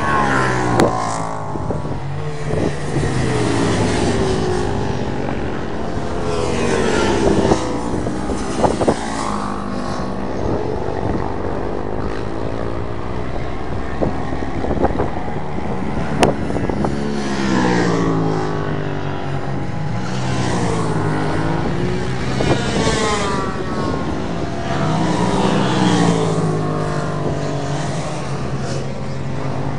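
Racing motorcycles passing one after another at speed. Each engine's pitch climbs as it approaches and then drops as it goes by, and the passes overlap into a near-continuous engine sound.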